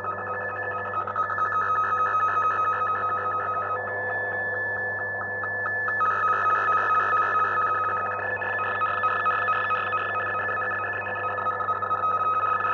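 VOA Radiogram's digital picture signal received on a TRIO 9R-59DS tube shortwave receiver: a fast-pulsing stream of electronic tones over shortwave static, carrying the image data. About 4 s in it switches to a single steady higher tone for a couple of seconds, then the pulsing resumes.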